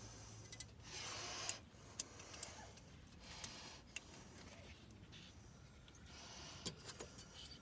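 Faint rustling of a wiring harness being handled, with a few light plastic clicks from an electrical connector in the engine bay.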